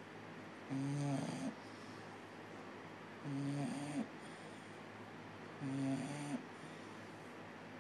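Bulldog snoring in its sleep: three pitched snores, each under a second long, about two and a half seconds apart, with quiet breathing between.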